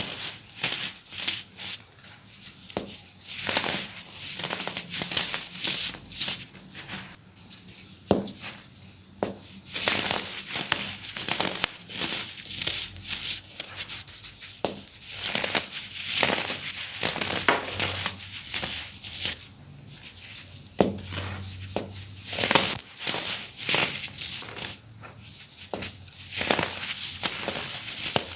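Baking soda being crushed: a steady run of irregular crunches and crackles, with louder crunches every few seconds.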